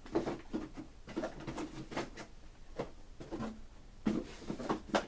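Trading cards and their packaging being handled on a table: irregular light rustling, sliding and tapping, with a few sharper clicks near the end.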